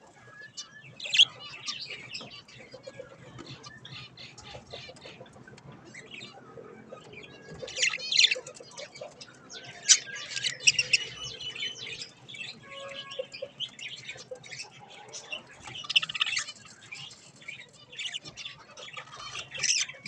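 Budgerigars chirping and squawking in quick runs of short, high calls. Louder bursts come about a second in, around eight and ten seconds, and again near the end.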